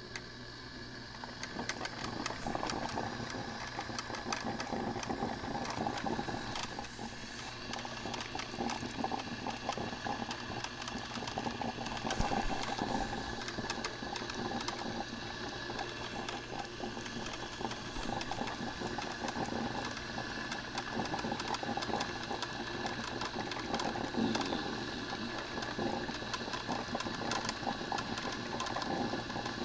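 Black & Decker thermal carafe drip coffee maker brewing: its heating element gurgling and sputtering in a dense, irregular crackle as it pushes hot water up to the basket, growing louder about two seconds in.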